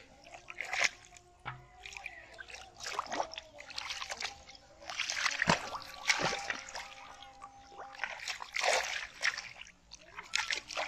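Irregular splashing and sloshing in shallow water as hands grab at a fish and the fish thrashes, in uneven bursts of a second or so.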